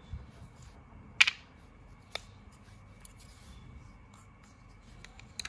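Light clicks and knocks of small wooden parts (pine dowels and plywood pieces) being handled and set down on a wooden tabletop: the sharpest about a second in, another about two seconds in, and one near the end.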